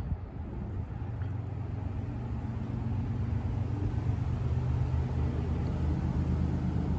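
Low, steady rumble and engine hum of the diesel locomotives on an approaching CSX double-stack freight train, still far off and slowly growing louder.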